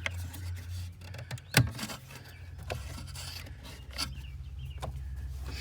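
Hands working up under a Jeep's dashboard around the flasher relay: scraping and rubbing with a few irregular clicks, and one sharp knock about a second and a half in.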